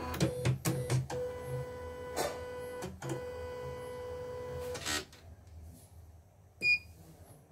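CNY portable computerised embroidery machine's motors whirring steadily for about five seconds as it starts up, with several clicks and knocks, then stopping. Near the end comes a single short beep from its touchscreen as a button is pressed.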